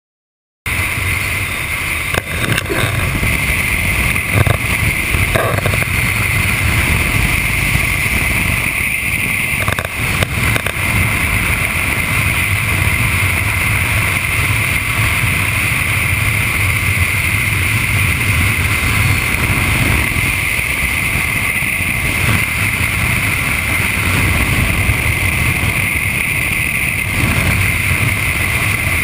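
A motorcycle cruising at highway speed, heard from a camera mounted on the bike: a steady engine drone mixed with wind and road noise, starting suddenly about a second in.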